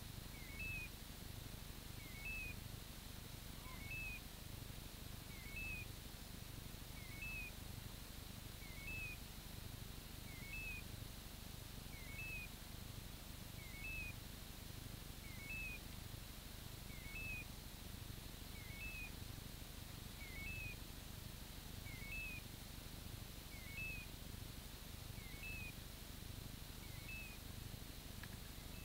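Hunting dog's beeper collar in point mode: a short electronic two-note chirp repeating evenly about every second and a half, the signal that the Gordon setter is standing still on point.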